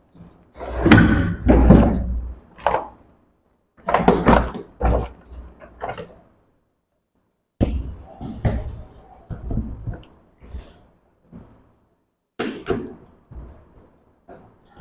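Cardboard box of a drywall sander being opened and unpacked by hand: irregular knocks and thumps with scraping handling noise, broken by a couple of short silent pauses.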